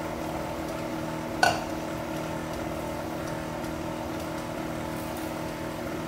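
Electric stand mixer running steadily at a low speed, beating an egg into cake batter in a stainless steel bowl. A single sharp clink rings out about one and a half seconds in.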